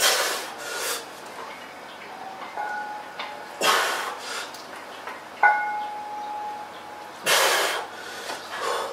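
A lifter breathing hard, three loud hissing exhalations a few seconds apart, while holding a loaded barbell. About halfway through comes a brief metallic ring from the barbell's iron plates and steel bar knocking together.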